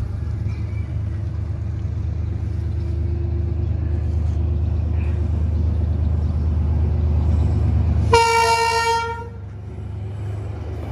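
D19E diesel-electric locomotive approaching over a steady low rumble, then giving one horn blast about a second long, near the end.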